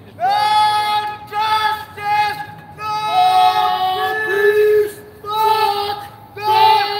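A high-pitched voice singing loudly and close by, a tune of long held notes with short breaks between phrases.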